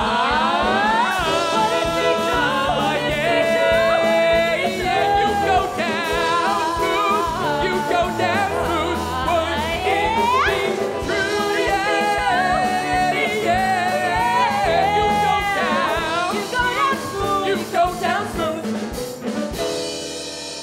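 A male and a female singer singing together over a live rock band of hollow-body electric guitar, piano and drums, the voices full of sliding vocal runs.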